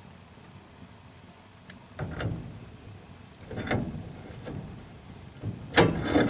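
A heavy brake drum and hub being worked onto a truck's rear axle spindle, giving a few metal scrapes and clunks as it slides on, the loudest clunk near the end.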